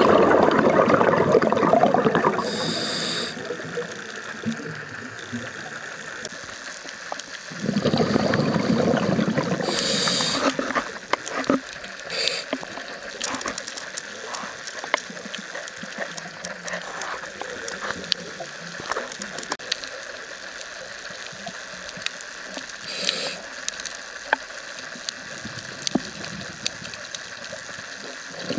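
Scuba diver breathing through a regulator underwater: a rush of exhaled bubbles at the start and again about 8 seconds in, each followed by a short hiss of the regulator on the inhale. Between breaths there are faint scattered clicks.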